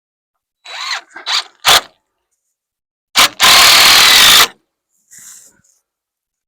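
A power drill runs in one loud burst of about a second, just after a short blip. It is preceded by a few clattering knocks of handling.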